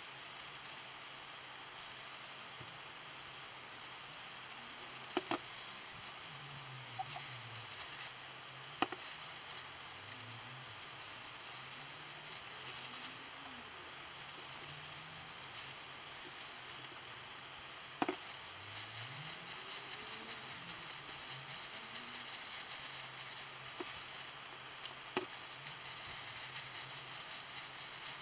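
Thin plastic-gloved hands squeezing and rubbing wet hair dye through hair: a steady crackling, squelching rustle, with a few sharp clicks.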